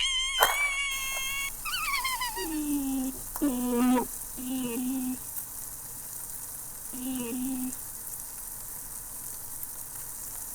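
Cartoon Foley sound effects: a steady sizzling hiss runs under wavering pitched tones. A high held wobble opens it, then come falling glides and a few short, low two-part notes.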